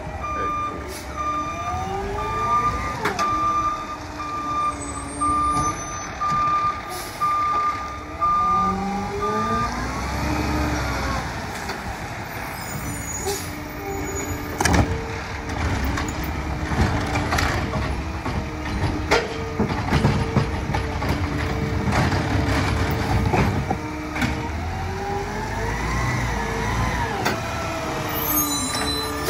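Peterbilt 520 garbage truck with a McNeilus ZR automated side-loader body manoeuvring: its reversing alarm beeps about once a second for the first ten seconds, the engine revs up and falls back several times, and a few sharp knocks and clunks sound in the middle.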